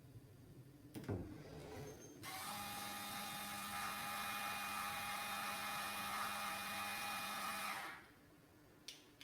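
Small electric motor of a DIY dishwasher door-opening mechanism running with a steady whine for about five and a half seconds, then stopping. A knock comes about a second in, and a short click near the end.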